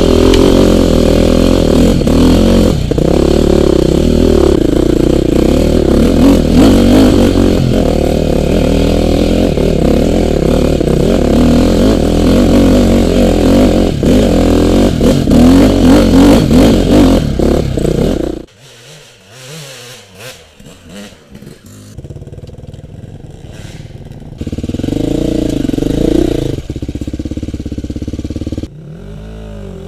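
Enduro dirt bike engine revving loud and unevenly, cutting off abruptly about two-thirds of the way through. After a few quieter seconds an engine revs again briefly.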